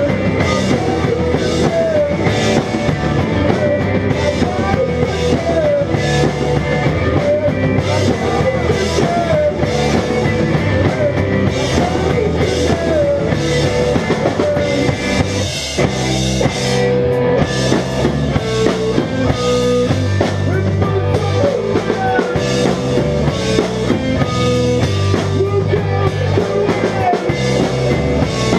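Small rock band playing live: electric guitars over a drum kit, at a loud, steady level with no break.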